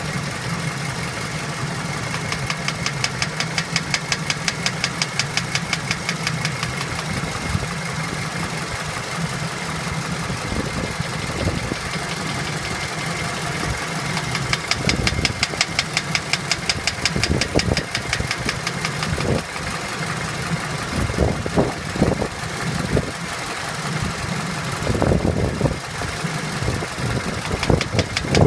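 Toyota 2AZ-FE 2.4-litre four-cylinder engine running with a fast, regular knock in time with the engine, which is the fault being shown. Several heavier, irregular thumps come through in the second half.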